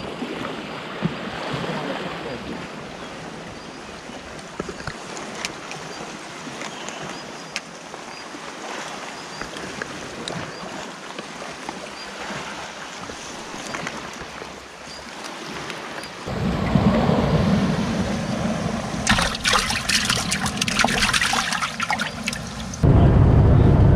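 Sea water washing against a rocky shore. After about two-thirds of the way through comes water sloshing and splashing in a keep bucket of live largescale blackfish. Near the end a loud, steady rumble of wind and a boat under way cuts in suddenly.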